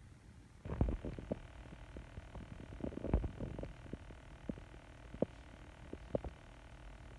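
Handling noise from a hand-held phone moving along the rod: scattered soft low thumps and light clicks over a faint rumble, with clusters about a second in and near three seconds, and a few sharp ticks later on.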